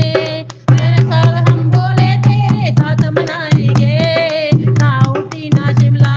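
Music of a Hindi Shiva bhajan between sung lines: a steady drum beat under a wavering, ornamented melodic lead and a sustained bass.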